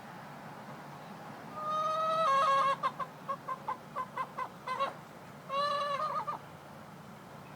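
Plymouth Rock hen calling: a long drawn-out note, then a run of about ten short clucks, then another drawn-out note broken off into a few quick ones. The owner likens the sound to crying.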